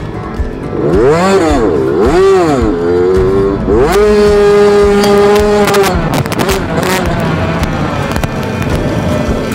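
Yamaha YZ65 two-stroke dirt bike engine being ridden under throttle: it revs up and falls back twice in quick succession, then climbs and holds high revs for about two seconds before easing off.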